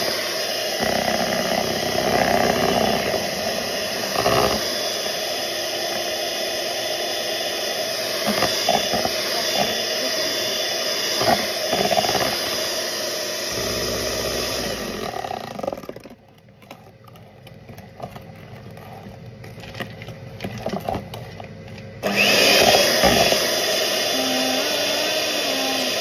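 Electric mixer whipping cold milk with a powdered dessert mix, running steadily. It stops about two thirds of the way through, then starts up again about six seconds later, its pitch rising briefly as it gets back up to speed.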